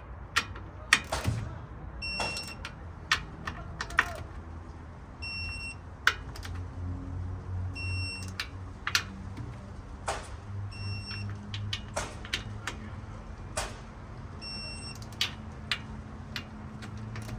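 Torque wrench working around the bolts of a Toyota FJ40 rear differential cover on its final pass: sharp ratchet clicks and knocks, with a short electronic beep about every three seconds as each bolt reaches torque.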